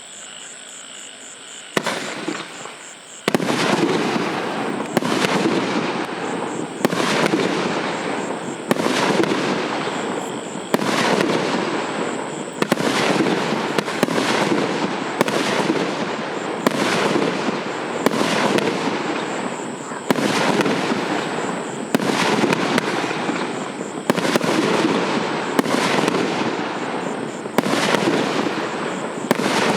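Fireworks battery (cake), OTC 5130 "Попутный ветер", firing shot after shot about once a second after a quieter first two seconds. Each shot is a sharp report that trails off before the next.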